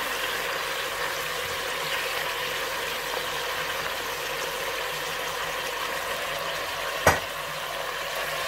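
Artichoke pieces and lamb sizzling in olive oil in a steel pot, a steady frying hiss as they are sautéed. One sharp knock about seven seconds in.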